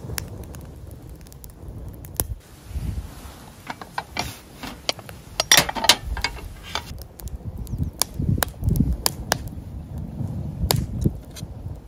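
Cookware and utensils being handled: a string of sharp clicks and knocks, with a denser rustling clatter about five and a half seconds in, over a low rumble.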